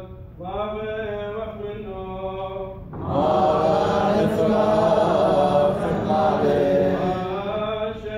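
Liturgical chanting of the Church of the East Mass, held on long, steady notes. About three seconds in, a louder and fuller body of voices joins for some four seconds before the steady chant line carries on alone.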